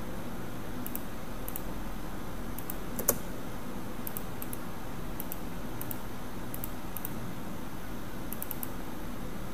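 Light clicks of a computer mouse and keyboard, coming in small groups every second or so, with one louder click about three seconds in, over a steady low electrical hum.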